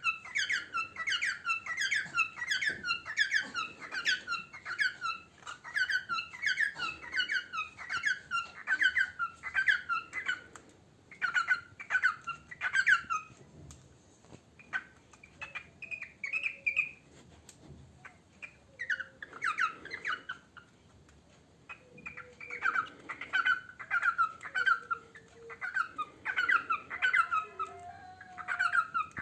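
Male cockatiel singing: quick runs of short, repeated whistled chirps. The song breaks off for a few seconds around the middle and then starts up again.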